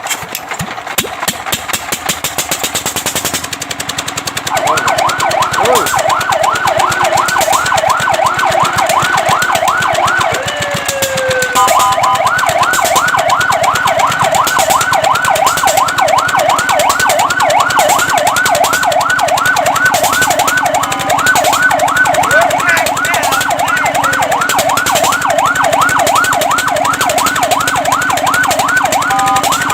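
Fire truck siren sounding in a fast yelp, about four up-and-down sweeps a second, starting about four and a half seconds in. Near the middle it briefly changes to slower glides before the yelp resumes. A fast steady pulsing runs underneath.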